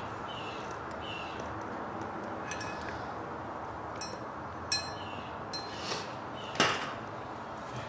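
Steel kingpins and hand tools clinking lightly, about five short ringing clinks spread over several seconds, while the new kingpins are being greased; the clink a little over six seconds in is the loudest. A steady low hiss lies underneath.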